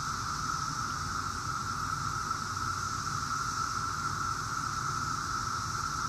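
Chorus of Brood X periodical cicadas: many males calling together to attract mates, blending into one steady, unbroken drone.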